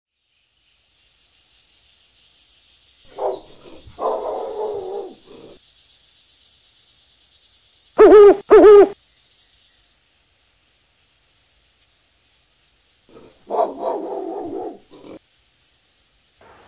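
An owl sound effect hooting twice in quick succession, loud, about eight seconds in, over a steady high hiss. Two quieter stretches of indistinct mid-pitched sound come about three and thirteen seconds in.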